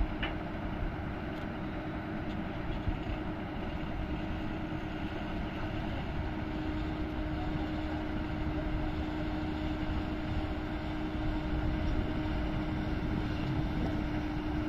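Truck-mounted borewell drilling rig's diesel engine running steadily, with a constant low hum.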